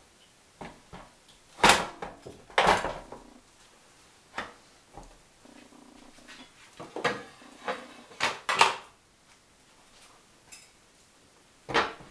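Sharp knocks and clatters of a Zelmer electric grill being handled: the ribbed grill plate is set down in its plastic base and the glass lid is put on near the end. There are about eight separate knocks, two in quick succession just past the middle.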